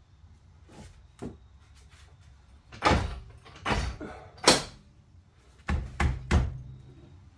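Heavy knocks and clunks of a BMW E46 strut assembly being worked up into place against the car's strut tower while its top is lined up. There are a few light clicks, then six loud knocks in two groups of three from about three seconds in.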